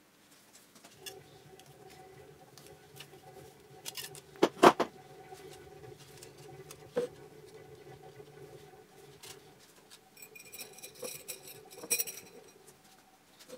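A 1.5 mm copper wire being coiled and lowered into a glass jar: scattered light clicks and taps, one sharp knock about four and a half seconds in, and near the end a run of clinks with a high ringing tone as the wire touches the glass.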